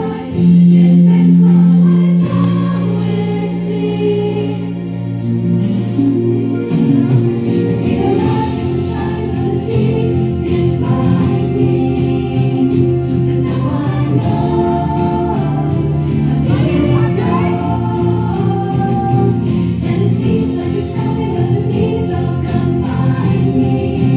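A group of teenage girls' voices singing a song together as a choir, with sustained, continuous singing.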